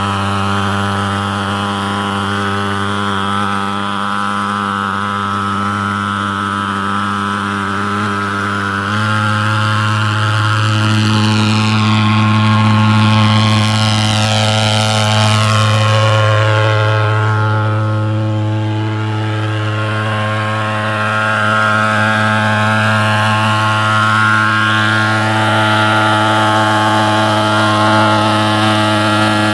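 Portable pulse-jet thermal fogger running, a loud, steady low drone with strong overtones; the drone shifts slightly about nine seconds in.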